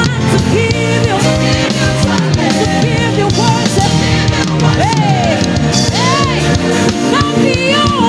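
Live gospel praise band playing: a bass line moving in steps under sliding, bending melodic runs.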